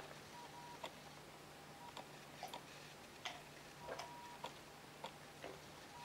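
A person gulping down a mug of water: a run of quiet, irregularly spaced swallowing clicks over a faint steady hum.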